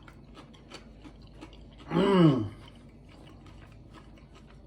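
Someone chewing a crunchy fried breadfruit tostón, with small irregular crunches throughout. About two seconds in comes a single hummed "mmm" of approval that falls in pitch.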